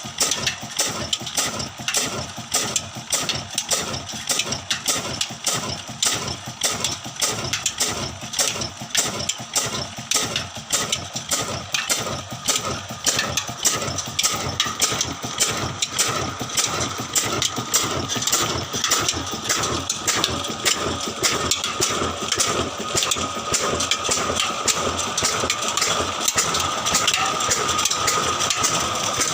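Old engine running at a slow, even beat of about two knocks a second, the beat quickening and a steady whine growing over the second half.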